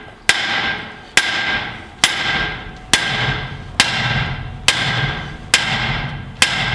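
Steel hammer pounding on a truck's front steering arm, eight hard blows about one a second, each with a metallic ring that dies away. The arm is seized by rust on its cone washers and bolts and has to be beaten loose.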